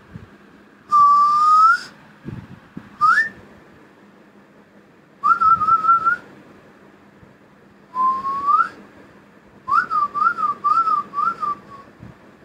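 Whistling in five separate bursts of a single clean pitch: two long notes sliding upward, a quick rising chirp, a wavering held note, and near the end a run of about five short rise-and-fall notes.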